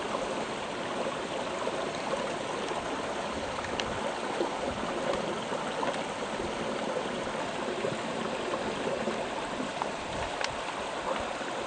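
Shallow brook water flowing and trickling steadily, with a couple of faint clicks.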